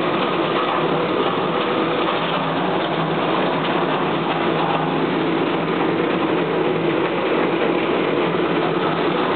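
Tamarind dehuller running steadily: a dense, even rattle over a steady low drone.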